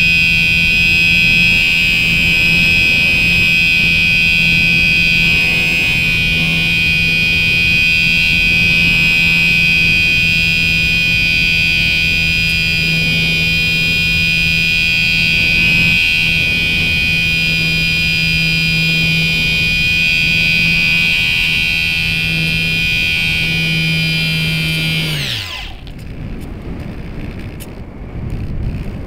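Electric motor and propeller of an Easy Glider RC model glider running steadily with a high whine. About 25 seconds in the motor is cut and winds down, its pitch falling, leaving only wind rushing past the airframe.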